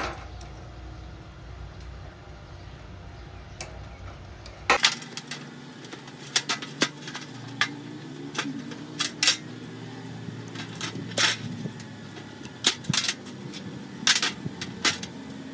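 Metal tools and parts clinking and knocking, over a steady machine hum that changes abruptly about five seconds in.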